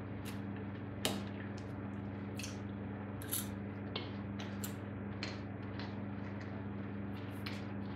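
Metal knife and fork clinking and scraping against a ceramic plate while fried breakfast food is cut and eaten: a sharp clink about a second in, then scattered lighter clicks. A steady low electrical hum sits underneath.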